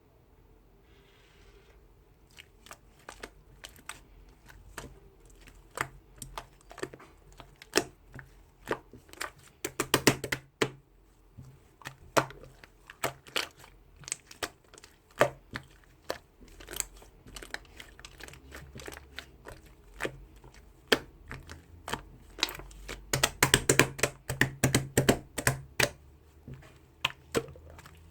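Close handling noise: irregular crinkling and sharp clicks, with a dense cluster about ten seconds in and a longer busy stretch in the last few seconds.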